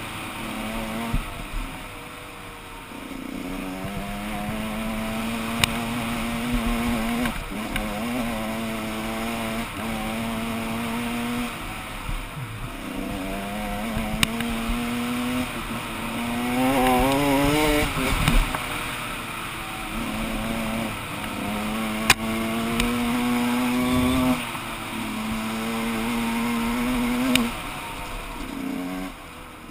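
Gas Gas 125 EC two-stroke single-cylinder engine pulling under load on a dirt trail, its pitch climbing through the revs and dropping back at each gear change or throttle lift, again and again. It revs highest about two-thirds of the way through. A few sharp knocks come from the bike over the rough ground.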